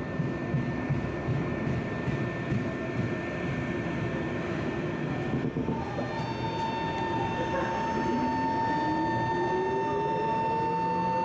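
Tokyo Metro 05 series train with high-frequency shunt chopper control pulling away from a stop. After a low rumble, the steady high chopper whine sets in about six seconds in, and a second motor tone rises steadily in pitch as the train accelerates. This is the string-like sound nicknamed the 'violin'.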